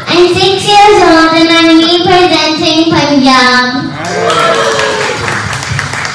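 A group of young children singing together in unison, holding long notes; the song ends about four seconds in and gives way to clapping.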